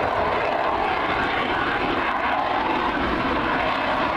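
F/A-18 Hornet-type fighter jet in flight, its engines making a steady rushing noise with no rise or fall.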